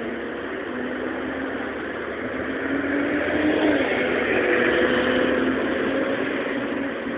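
City bus engine running, swelling about halfway through as the bus comes close and easing off toward the end, its engine note shifting in pitch.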